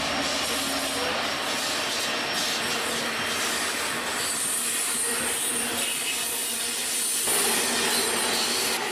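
Diesel freight locomotives passing close by, engines running with the steady noise of wheels on rail, a little louder near the end.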